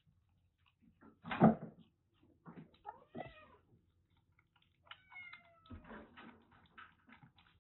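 Young kitten meowing while it suckles milk from a small feeding bottle, with short smacking noises from the feeding. A louder knock about a second and a half in.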